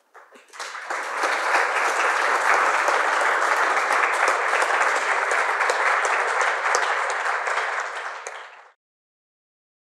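Audience applauding: dense clapping that swells in over the first second, holds steady, then cuts off abruptly near the end.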